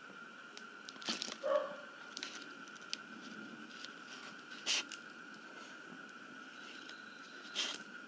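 A few short crinkles and crackles of a thin plastic water bottle being handled, three or four separate times, over a steady faint high tone.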